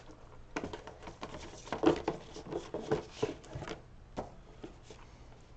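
Die-cut cardboard counter sheets of a board wargame being handled: a quick run of light taps and rustles, loudest about two seconds in, dying away after about four seconds.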